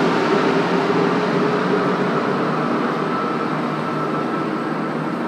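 Metro train running out of the station into the tunnel, a steady rushing noise with a faint motor hum that slowly fades.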